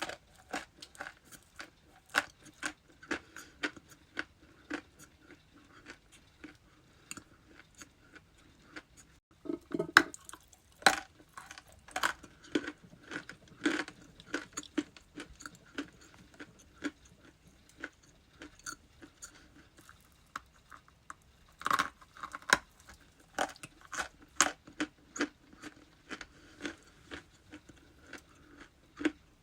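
Ice being bitten and chewed close to the microphone: a long run of sharp, irregular crunches, with harder bites about ten seconds in and again past twenty seconds.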